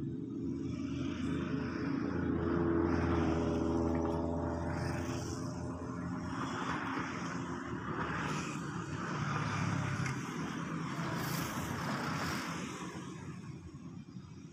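A motor engine running steadily, growing louder about two seconds in and fading near the end.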